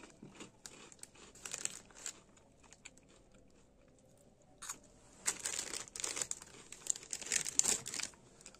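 Light crinkling of a Cheetos Flamin' Hot packet as a piece is taken out, then from about five seconds in a run of crisp crackly crunches as the puff is bitten and chewed.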